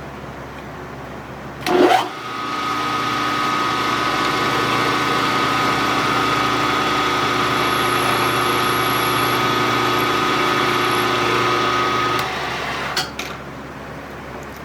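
Milling machine spindle in high range switched on, speeding up with a quick rising whine, then running steadily with a gear-like whine while center drilling, and switched off about twelve seconds in, followed by a short knock.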